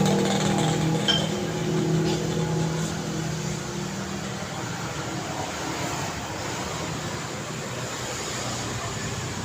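Road traffic: a passing motor vehicle's engine fades away over the first few seconds, leaving a steady hum of traffic.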